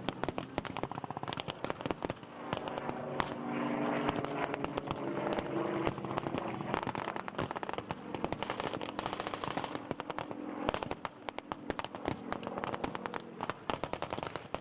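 Rapid, overlapping blank gunfire from rifles and machine guns in a staged WWII battle: many sharp shots a second, irregular and continuous.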